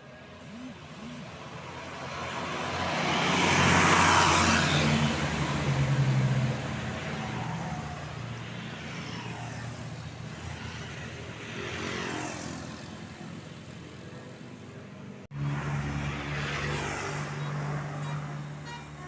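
Tour buses passing close by on the road: engine note and tyre noise swell and fade, the loudest pass about four seconds in and a smaller one near twelve seconds. An abrupt cut near the end brings a bus engine running close by, steady. No musical horn is sounded here.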